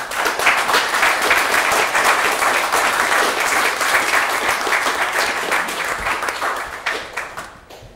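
Audience applauding, starting suddenly, holding steady for about seven seconds and fading out near the end.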